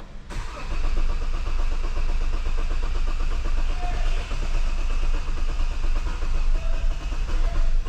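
2016 SsangYong Tivoli diesel engine turning over with a steady, fast rhythmic pulse, coming in about a third of a second in after a brief silence.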